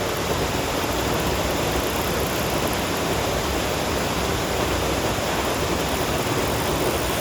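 Steady rush of water pouring over a spillway, an even noise that doesn't change.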